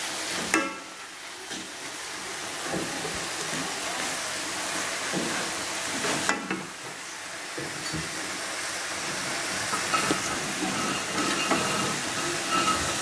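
Stir-fried genjer greens sizzling and steaming in a wok after a splash of water, with a steady hiss. A metal spatula scrapes and knocks against the pan a few times.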